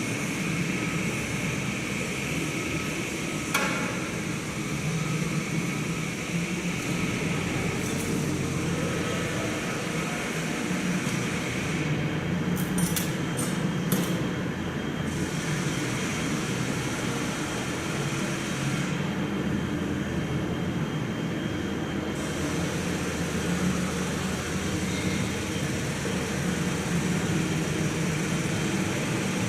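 Diesel train engine running steadily, with a few sharp metallic clicks about three and a half seconds in and again around twelve to fourteen seconds.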